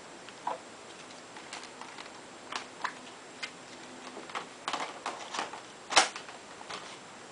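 Scattered light clicks and taps of hard plastic as the laptop is handled and the last plastic parts are pressed back into place, with one sharper click about six seconds in.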